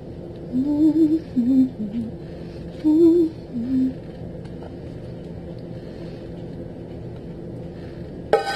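A woman humming a short tune in a few brief phrases. Near the end a metal pot clanks.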